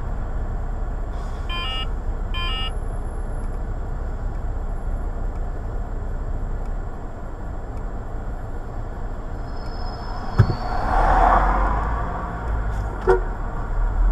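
Car cabin with a steady low engine hum while idling, and two short car horn toots in quick succession about two seconds in. Later come a sharp knock, a brief louder swell of noise and a second knock.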